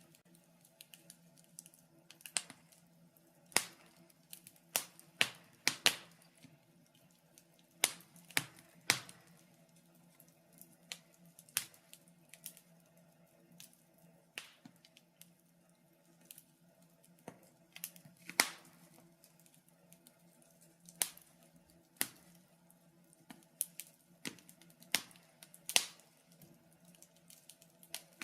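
Wood fire crackling in a fireplace: irregular sharp snaps and pops, one to three a second, some much louder than others, over a faint steady hum.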